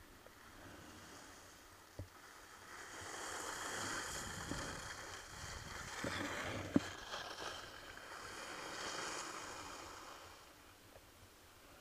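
Skis sliding and carving on packed snow, the scraping hiss swelling and fading three times with the turns. A sharp click about seven seconds in, and a fainter one about two seconds in.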